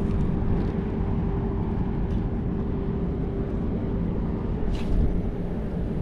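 Strong wind buffeting the microphone, with a steady droning tone underneath and a few faint clicks.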